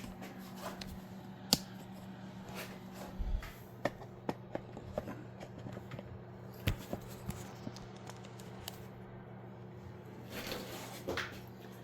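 Scattered light clicks and taps of small parts and tools being handled, over a steady low hum.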